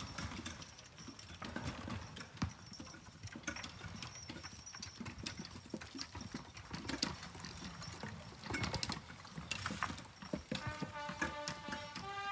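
Horses walking past on a dirt forest track, hooves clip-clopping irregularly, as a team draws a two-wheeled artillery limber and cannon. Near the end a steady held pitched sound comes in over the hoofbeats.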